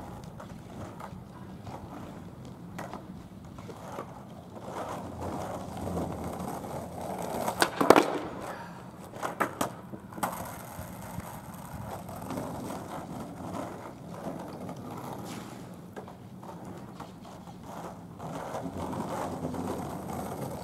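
Skateboard wheels rolling over rough asphalt, with loud sharp clacks of the board hitting the ground about eight seconds in and a few smaller ones just after.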